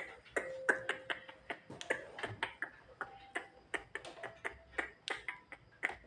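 A jalak (starling) making a rapid series of sharp clicks, about three a second, with a couple of short whistled notes in between.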